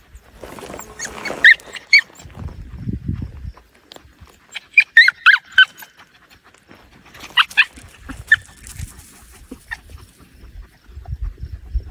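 Blue heeler whining and yipping in short, high-pitched squeals: a pair about a second and a half in, a quick run of about five near the middle, and a few more later.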